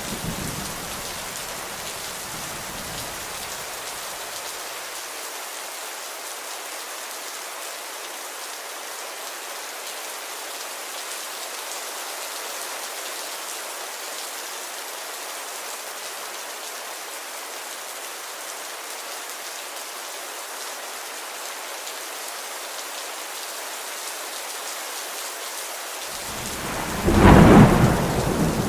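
Steady rain hissing, with a low thunder rumble dying away over the first few seconds. Near the end a loud roll of thunder breaks in and fades.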